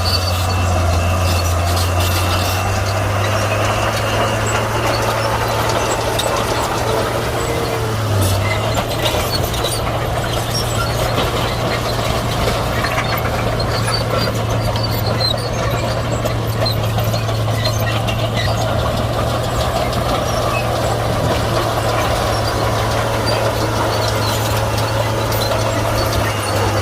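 Komatsu D41P crawler bulldozer's diesel engine running steadily at a constant low pitch, with no rise or fall in level.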